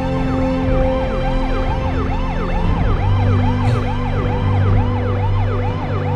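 Emergency-vehicle siren wailing in a fast, repeating up-and-down yelp, about three cycles a second, over sustained background music.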